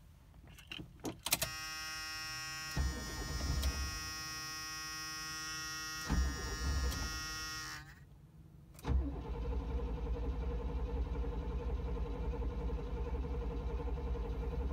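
The 1976 Cadillac Fleetwood Brougham's 500 cubic-inch V8 being cranked by its starter on a cold morning: a steady buzzing tone with two short low thumps, then after a pause a steady rhythmic cranking for about six seconds that stops without the engine catching, a hard start.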